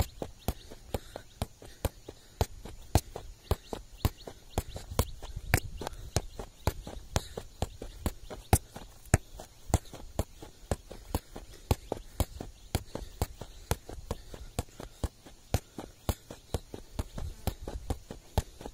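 Football being juggled: a steady run of sharp thuds as the foot and leg strike the ball, about two to three touches a second without a break.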